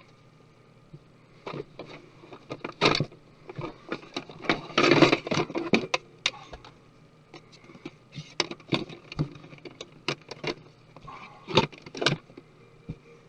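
Small tools and the parts of a MacBook Pro being handled during disassembly: scattered clicks and light knocks, with a longer rustling, scraping stretch about five seconds in.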